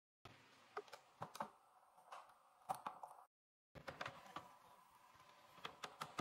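Faint, scattered knocks and crackles of rotten, termite-damaged door wood being broken and pried away, then a lump hammer tapping a chisel into the rotten rail several times in the last couple of seconds.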